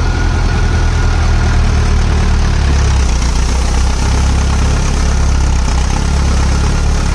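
Diesel tractor engines running under load as one tractor tows another out of deep mud. The low engine note deepens and strengthens about three seconds in.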